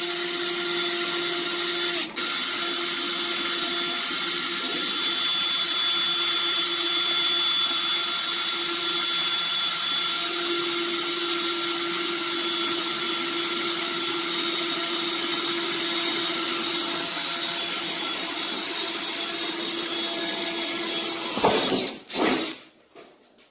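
Cordless drill running steadily with a high whine as it cuts a hole through the underside of a car's sheet-metal hood. It breaks off for a moment about two seconds in, and winds down near the end, followed by a couple of knocks.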